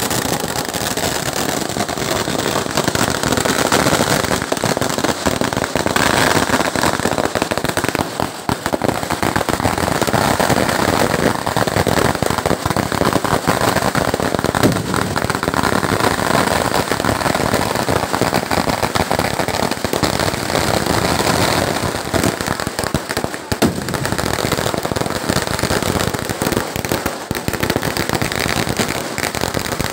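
Kerala vedikettu fireworks: a dense, unbroken barrage of firecrackers going off, countless rapid bangs and crackles running together without a pause.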